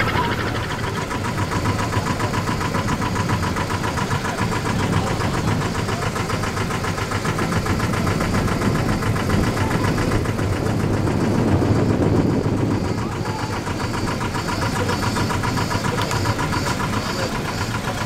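Small tour boat's engine running steadily, heard from on board, with a fast, even pulse.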